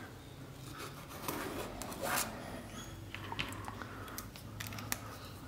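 Light handling sounds of a pen and a clear acrylic quilting ruler on a fabric square and cutting mat: soft scratches and rustles with a few small clicks, one as the pen is capped.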